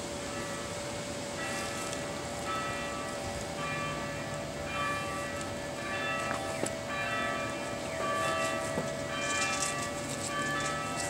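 Church bells of St. Norbert Abbey ringing, several bells struck one after another, starting about a second in and ringing on.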